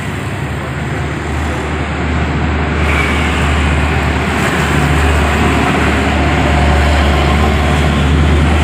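Road traffic, with motorcycles and cars passing close, over the steady low drone of a heavy diesel dump truck's engine pulling up a steep grade. The sound grows gradually louder as the truck approaches.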